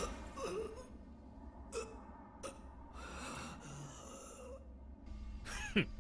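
Faint breathing and short gasps on a quiet cartoon soundtrack, with one short falling, pitched sound near the end.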